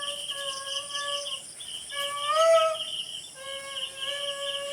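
Crickets trilling in a fast, steady pulse. Over the trill come long, even pitched calls, the loudest rising and falling about halfway through.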